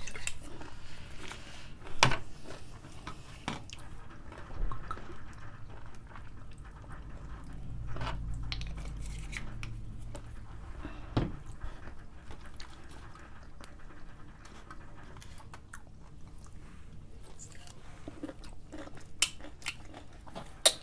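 Biting into a pickle and chewing it, with a few sharp crunches; the loudest come about two seconds in and about eleven seconds in.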